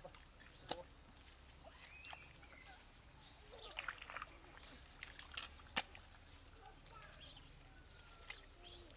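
Faint, scattered splashes and squelches of hands groping in shallow muddy water, with a short bird call about two seconds in.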